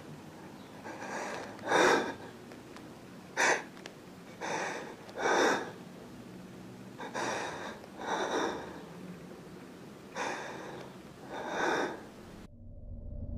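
A person breathing hard and audibly, with loud gasping breaths in and out, in pairs every two to three seconds.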